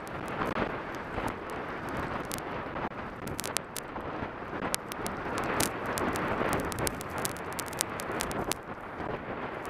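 Wind rushing over a skier's camera microphone and skis running through deep powder snow, a steady wavering rush with frequent sharp clicks scattered through it.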